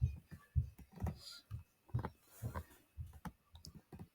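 Faint, unevenly spaced clicks and taps, about fifteen quick strokes with no steady rhythm.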